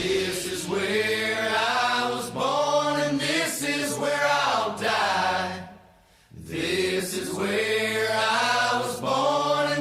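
Soundtrack music: sung voices holding long notes with no clear beat. The singing breaks off briefly about six seconds in, then resumes.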